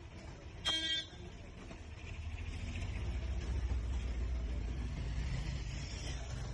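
A single short vehicle horn toot about a second in, followed by a low, steady vehicle engine rumble that grows louder.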